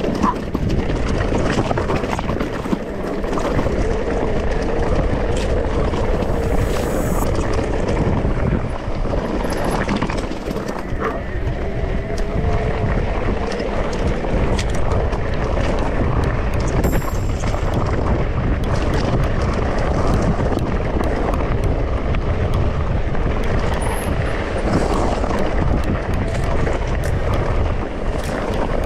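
Wind rushing over the microphone and mountain-bike tyres rolling over a rough trail, with frequent small clicks and rattles.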